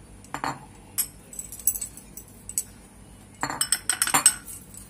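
Scattered light clinks and taps of kitchenware against a steel plate and small bowls, with a quick run of clinks about three and a half seconds in.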